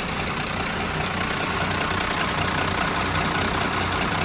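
Twin inboard diesel engines of a 1996 Rodman 1100 Fisher idling steadily, heard close up in the open engine bay, shortly after a first-time cold start.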